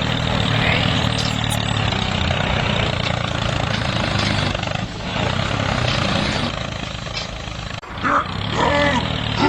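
An engine running steadily with a low hum, briefly dropping out about eight seconds in.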